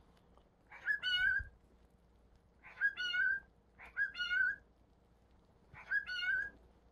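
An animal calling four times, each call short and wavering, about one to two seconds apart.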